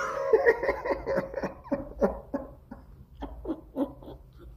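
A man laughing hard, a string of short breathy laughs at about three a second that fade toward the end.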